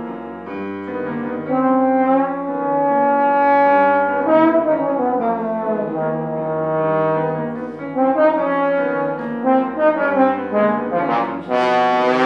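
Trombone playing a classical solo melody in sustained notes over piano accompaniment. About halfway through one note slides in pitch, and near the end it plays a few louder, brighter short notes.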